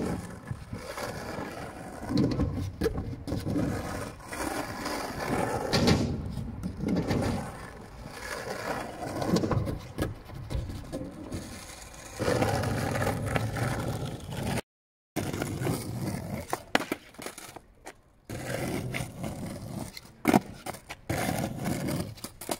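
Skateboard wheels rolling over rough asphalt, the rumble swelling and fading as the board speeds up and slows, with scraping and occasional sharp clacks of the board.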